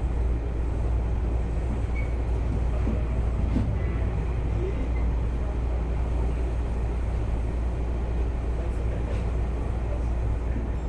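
Running noise of a Tokyu Oimachi Line electric train, heard from inside the car: a steady low rumble as it travels at speed.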